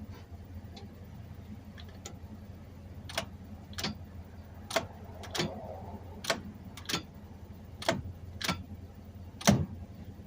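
1953 Chevy 3600 pickup's floor starter button and linkage clicking as it is pressed and released several times, about nine sharp clicks in pairs with the last the loudest, and the starter never cranks. A steady low hum runs underneath. The mechanic takes the no-crank for a failed switch inside the starter.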